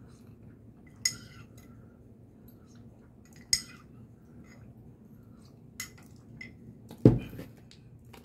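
Metal spoon clinking against a ceramic coffee mug: two sharp, ringing clinks about one and three and a half seconds in, then a few lighter ticks. Near the end comes a single dull thump, the loudest sound.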